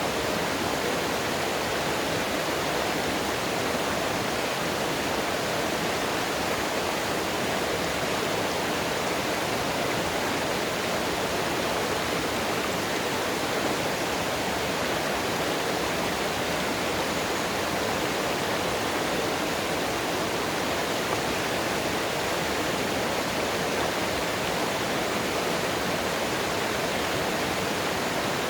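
Mountain stream water rushing and splashing over rocks in a steady, unbroken flow.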